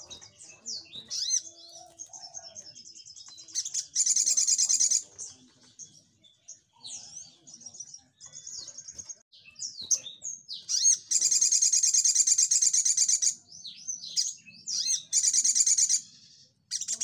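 Male olive-backed sunbird singing its fast, rapid-fire song: sharp, high chirps and twitters broken by three long, loud, rapid trills, starting near four seconds in, around eleven seconds, and near fifteen seconds.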